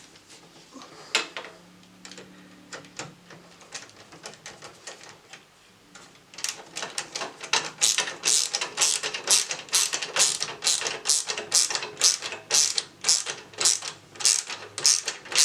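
Screwdriver ratcheting as a screw is driven into the bracket of a PC expansion card: a few scattered clicks, then about six seconds in, loud bursts of clicking about twice a second with each back-stroke of the handle.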